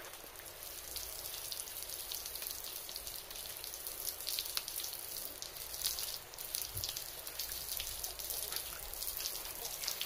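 Water spraying from the arms of a homemade PVC-pipe rotating fountain and falling back as a shower of droplets onto a muddy puddle: a steady hiss full of small splashes.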